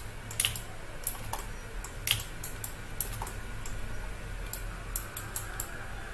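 Irregular clicks of a computer mouse and keyboard, one or two a second, over a faint low hum.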